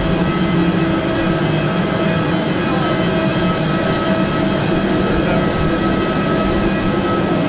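Airport apron machinery running, from a parked aircraft and its ground equipment: a steady loud drone with several constant whining tones held at one pitch.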